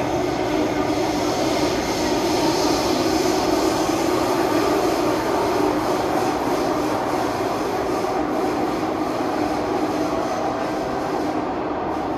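Steady running noise of a Singapore MRT Thomson-East Coast Line train heard from inside the carriage while it travels at speed between stations: an even rumble with a low steady hum from the wheels and traction motors.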